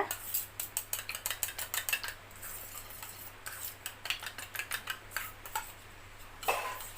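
Metal spoon clicking rapidly against a bowl as sour yogurt is whisked smooth. The clicks are dense at first and become sparser after about two seconds.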